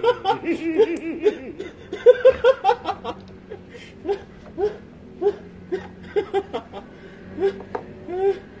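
Male laughter: a run of hard laughing for about the first three seconds, then short chuckles coming roughly every half second.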